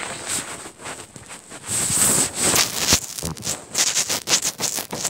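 Rustling and scuffing: a quick, irregular run of crackles and brushes that grows busier about two seconds in.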